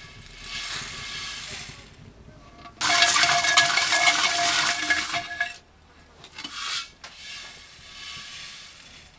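Roasted rice grains poured from a black iron pan into a wooden bowl of popped corn: a rushing patter of small grains in three spells, the middle one loudest.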